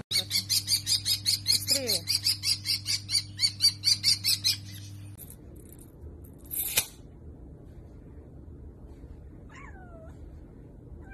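A quick, even run of light taps, about five a second, for the first four seconds or so. Later comes a short burst of noise, then a kitten's single meow, falling in pitch, near the end.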